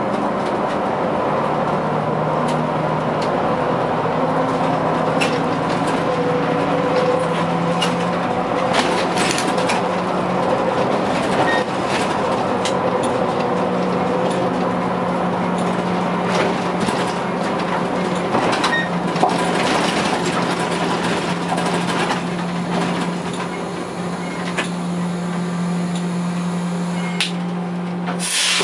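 Škoda 15TrM trolleybus running, heard from the cab: a steady low electric hum that shifts in pitch as it drives, over tyre and road noise, with scattered clicks and rattles.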